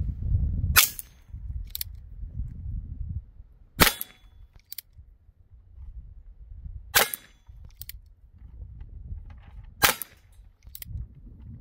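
Ruger Wrangler .22 LR single-action revolver fired four times, about three seconds apart, shooting CCI standard-velocity rounds. Each sharp crack is followed about a second later by a fainter click.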